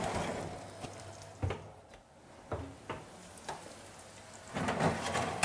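Hot roasting potatoes and sausage sizzling faintly on a metal baking tray in the oven, with a few light clicks of a spatula against the tray and a louder scraping noise near the end.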